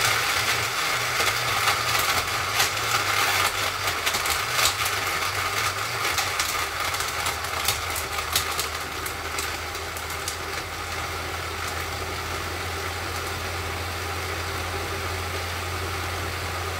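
Electric countertop blender running on speed 2, crushing ice cubes and banana. Many sharp clicks and rattles come through in the first half, then it settles into a smoother, steady whir as the mix turns liquid.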